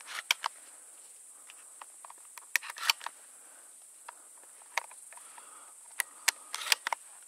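Steady high chirring of grasshoppers in an evening field, with scattered sharp clicks and rustles close by, loudest around the middle and near the end.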